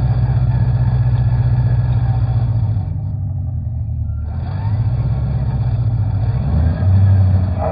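Deep, steady truck-engine rumble from an RC dually pickup truck. It fades briefly about three seconds in, then returns louder and a little higher near the end, as if revved.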